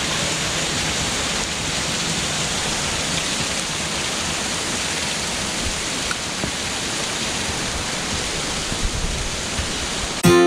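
Steady hiss of rain and running water, with a few faint knocks in the last few seconds. Acoustic guitar music cuts in just at the end.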